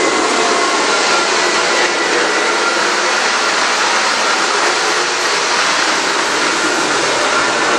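Lionel O-gauge model freight train rolling past close by, a steady rushing hiss and rumble of metal wheels running on the track.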